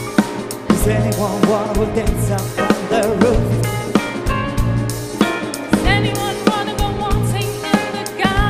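Live band with a drum kit playing an upbeat groove, with a vocal group singing over it.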